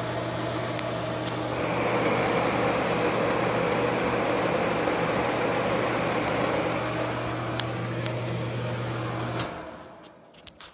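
Ceiling bathroom exhaust fan running: a steady motor hum under loud rushing air. About nine seconds in a click as the wall switch turns it off; the hum stops at once and the air noise fades as the fan spins down, which the owner takes as a sign there is nothing wrong with the bearings.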